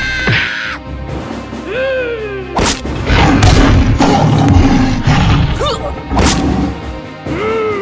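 Cartoon soundtrack: background music with crash and thud sound effects, two sharp impacts about two and a half and six seconds in, and short swooping calls that rise and then fall in pitch.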